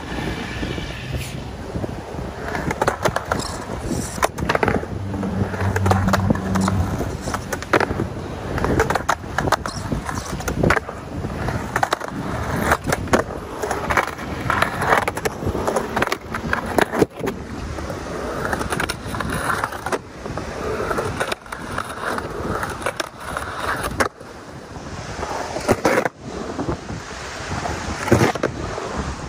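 A skateboard on urethane wheels rolling and carving on concrete, with its Independent Stage 11 Hollow trucks grinding on coping. Many sharp clacks and knocks come from the wheels and board hitting down.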